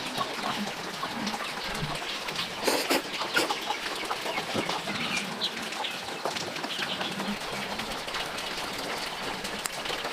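Chickens clucking amid scattered knocks and rustling, with a louder clatter about three seconds in.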